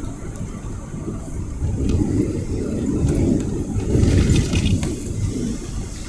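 A car driving along a road, its engine and tyre noise a steady rumble that grows louder for a few seconds in the middle and then eases.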